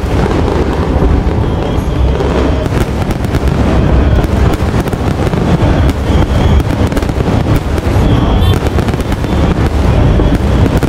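Aerial fireworks display, recorded on a phone's microphone: a continuous barrage of shell bursts with a steady low rumble and many sharp cracks and crackles, thickening from about two seconds in.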